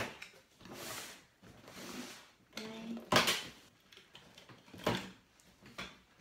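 A large cardboard box being handled and turned around on a tabletop: a run of scrapes and rustles with a few sharp knocks, the loudest a little after three seconds in.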